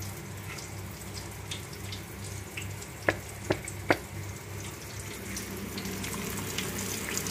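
Fish frying in hot oil: a steady sizzle with small crackles, getting louder near the end as a flour-coated fish goes into the oil. Three sharp clicks a little past the middle.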